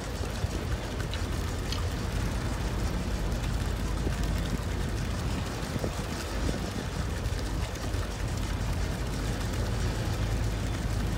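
Steady low rumble of a boat engine under an even wash of wind and water noise.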